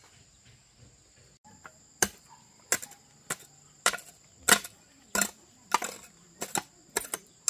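Rhythmic chopping: a blade striking down about every 0.6 seconds, starting about two seconds in. A steady, high insect drone runs behind it.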